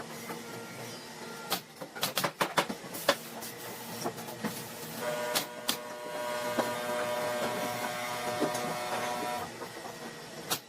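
Workshop sounds: scattered clicks and knocks, then a small electric motor whirring steadily for a few seconds about halfway through.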